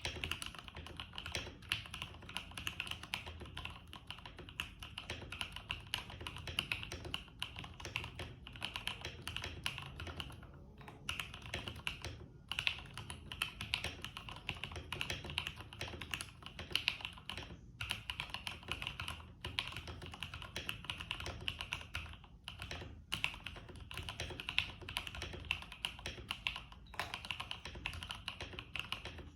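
Steady, fast typing on an IK75 keyboard set on a desk mat: a continuous run of key clicks with a few brief pauses.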